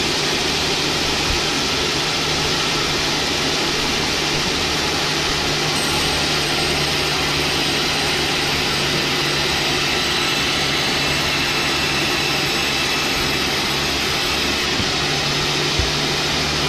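Sawmill machinery running steadily: a constant low machine hum under a loud, even rushing noise, with no breaks.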